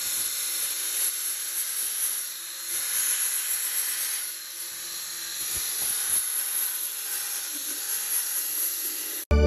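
A steady hiss, mostly high-pitched, wavering a little in loudness; it cuts off abruptly near the end.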